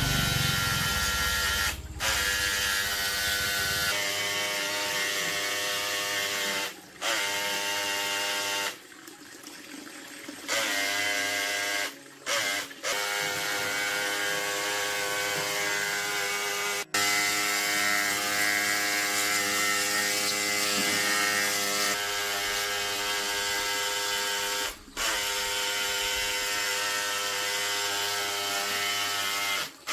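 Small electric motor running at a steady pitch, with several abrupt short breaks where the sound drops away and then resumes.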